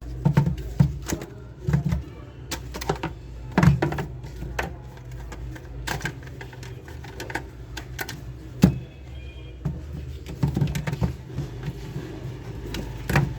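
Irregular clicks and knocks of plastic toy car ramp parts being handled and fitted, over a steady low hum.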